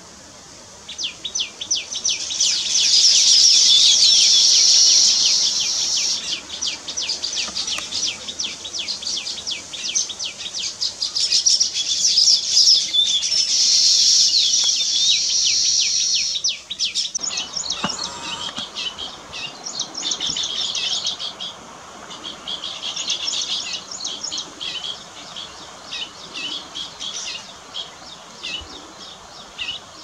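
Baya weavers chattering: a dense run of rapid, high chirps, loudest in the first half, turning sparser and quieter after an abrupt change about 17 seconds in.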